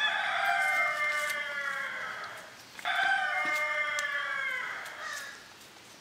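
A rooster crowing twice, each crow a long, drawn-out call of about two seconds, the second starting about three seconds in.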